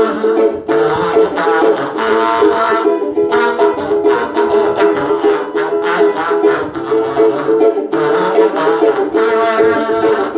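Small plucked string instrument strummed in a steady, quick rhythm, playing a short tune.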